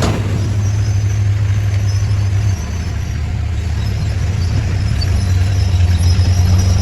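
Diesel engine of heavy earthmoving machinery running with a steady low drone. It eases off about two and a half seconds in, then builds gradually as it takes on load again.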